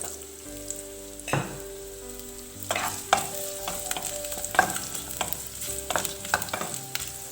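Potato pieces sizzling as they fry in hot oil in a pan, with a string of sharp taps and clatters as pieces go in and are moved against the pan.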